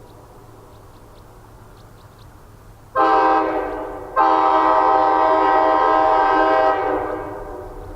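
Nathan Airchime K5LA five-chime locomotive horn, an old small-bore unit from a retired Amtrak F40PH, sounding its full chord. It gives a short blast about three seconds in, then a longer blast of about two and a half seconds that fades out over about a second.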